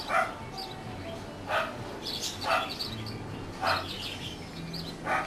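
A dog barking repeatedly, about five barks spaced a second or so apart, with birds chirping faintly in between.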